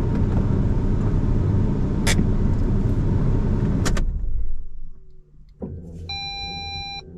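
A car driving, a loud low rumble of road and engine noise with a couple of sharp clicks, which cuts off after about four seconds. Near the end comes a steady beep lasting about a second.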